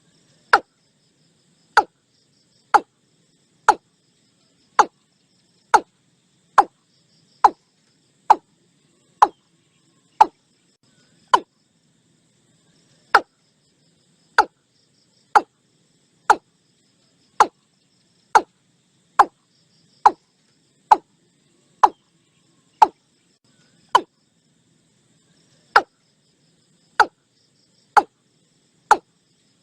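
Watercock calling: a long series of short, sharp notes, each dropping in pitch, repeated about once a second with a couple of brief pauses. A faint insect chorus sits beneath.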